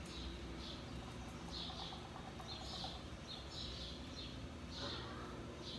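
A bird chirping over and over, short high chirps about once or twice a second, over a low steady hum.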